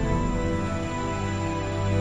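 Background music: soft, sustained chords held steady.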